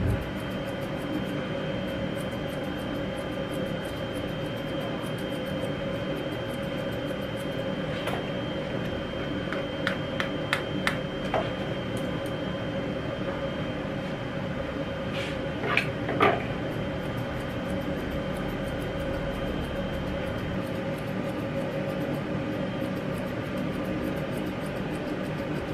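Grooming scissors snipping fur in quick, faint clicks, with a few sharper clicks about eight to eleven seconds in and again around fifteen to sixteen seconds in, over a steady hum.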